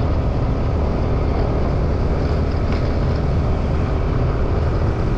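Motorcycle running at a steady cruise, a constant low rumble with no change in speed.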